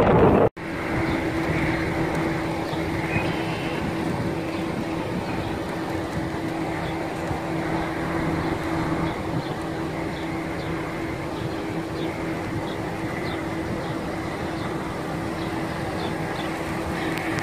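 Wind buffeting the microphone cuts off abruptly about half a second in, giving way to a steady outdoor mechanical hum, like a running vehicle, with a constant low tone. Faint high chirps repeat through the middle and later part.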